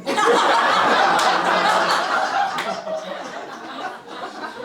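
Audience laughing in reaction to a punchline: a burst of crowd laughter that starts at once, stays loud for two to three seconds, then dies down.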